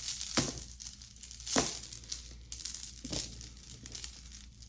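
Crinkling and rustling of plastic packaging as jewelry is handled, with three sharp clicks, the loudest about a second and a half in.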